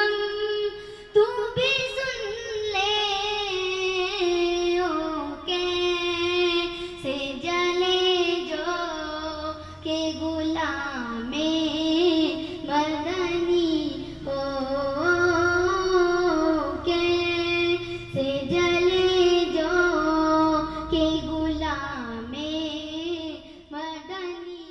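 A child singing a naat, an Urdu devotional song, solo in long ornamented phrases. The voice fades out near the end.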